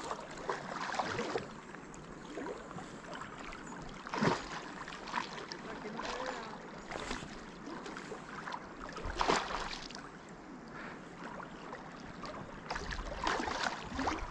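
River water sloshing and splashing close by, with a few brief louder splashes about four, nine and thirteen seconds in.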